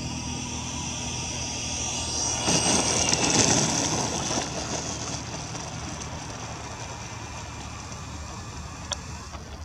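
Electric ducted fan of a Freewing MiG-21 RC jet whining as the model lands and rolls out. The whine swells to its loudest about three seconds in, then fades steadily; a single click comes near the end.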